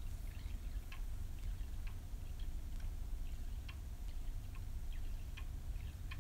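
Contact lens solution dripping slowly from a squeezed plastic bottle into a small plastic measuring spoon: faint, irregularly spaced ticks roughly every half second to second, over a low steady hum.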